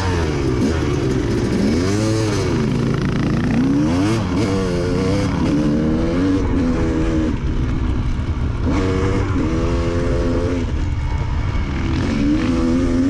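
Off-road dirt bike engine under way, heard from a helmet-mounted camera on the rider. The revs rise and fall over and over as the bike accelerates and shifts along the trail.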